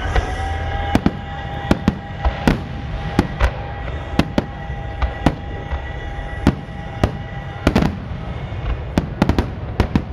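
Fireworks display: aerial shells bursting in quick, irregular succession, about twenty sharp bangs over a continuous low rumble.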